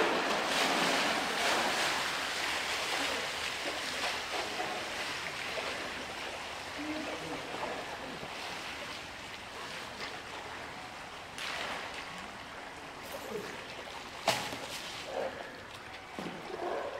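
A polar bear splashing through pool water and hauling out, the splashing loudest in the first few seconds and then dying away. A sharp knock comes about fourteen seconds in.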